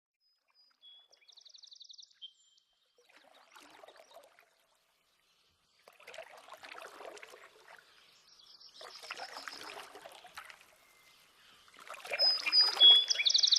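Canoe paddle strokes through river water, four slow swishes a few seconds apart. Small birds chirp and trill, with a fast trill about a second in and more calls near the end.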